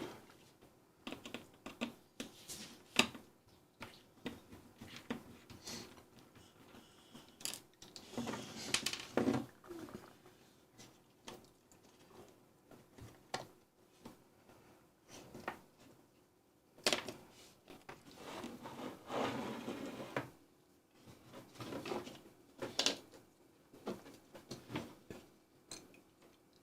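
Scattered small clicks, taps and scuffs of hands handling the parts of an opened plastic trouble light on a workbench, with short bursts of rustling and scraping now and then.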